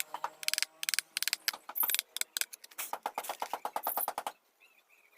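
Rapid, even tapping of a mallet on a carving chisel cutting into teak, several light strikes a second, stopping about four seconds in.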